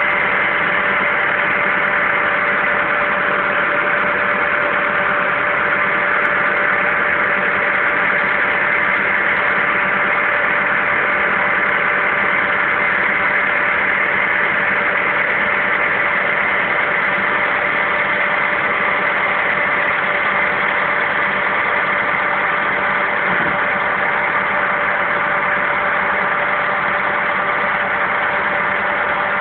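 Farm tractor's diesel engine running steadily at a constant speed, an even hum with no revving.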